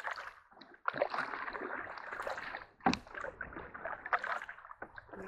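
Canoe on the water: stretches of paddle and water swishing, with one sharp knock about three seconds in.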